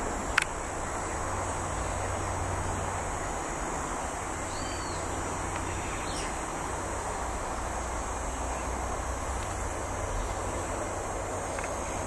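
Steady outdoor ambience: a continuous high-pitched insect drone over a broad background hiss and low hum. A sharp click comes just after the start, and a single faint short bird note about four and a half seconds in.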